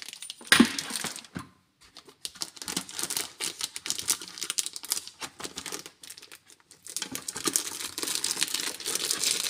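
Plastic bag packaging crinkling and rustling as a CB radio's microphone and power cable are handled in their wrapping. A sharp knock comes about half a second in, and the crinkling goes in two stretches with a short pause between them.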